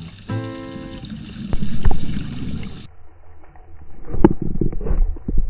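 Background music with held notes, cutting off about three seconds in. Then muffled underwater rumbling and gurgling in irregular surges from a scuba diver's exhaled regulator bubbles.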